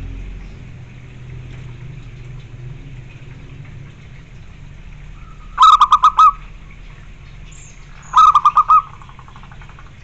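Zebra dove (perkutut) cooing twice, each call a short rapid run of staccato notes, about two and a half seconds apart; the second call trails off in fainter notes.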